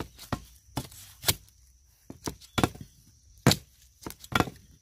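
A metal blade chopping into soil and roots at the base of a wild bamboo shoot to cut it out: a series of about ten sharp, uneven strikes.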